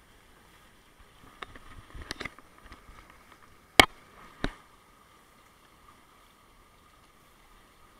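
An action camera being handled and set in position, with several knocks and clicks against it, the loudest a sharp click about four seconds in. Under them a steady faint rush of hot tub jets bubbling.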